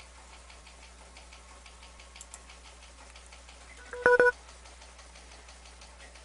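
A short double electronic beep about four seconds in, from the digital-mode software's sound alert, as the awaited 73 message from the other station is decoded. A steady low hum and faint ticking lie under it.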